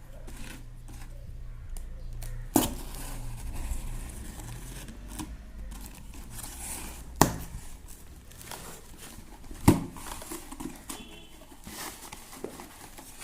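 Speaker packaging being unboxed by hand: cardboard and plastic wrapping crinkling, rustling and tearing, with three sharp clicks or knocks, about two and a half, seven and ten seconds in.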